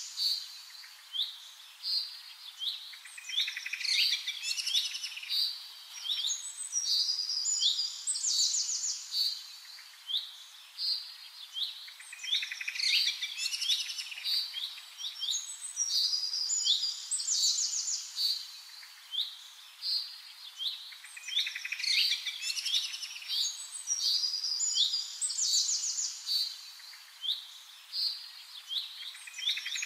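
Small birds chirping and twittering in quick trills, many calls overlapping. The same stretch of birdsong comes round again about every nine seconds, like a looped recording.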